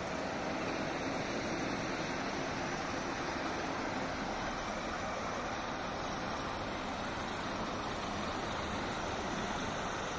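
Coach engines idling, mixed with passing road traffic: a steady, even noise with no distinct events.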